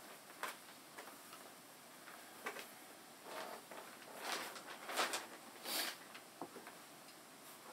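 Faint, scattered taps and clicks with a few short rustles as a person moves about and walks across a room.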